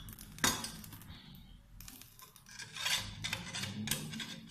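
Metal spatula scraping grilled tomato slices off a metal baking tray, with one sharp clink about half a second in and a longer stretch of scraping near the end.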